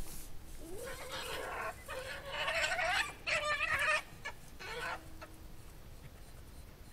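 Eurasian badgers fighting, giving a harsh, pitched screaming call in about four stretches over some four seconds, the first one rising in pitch.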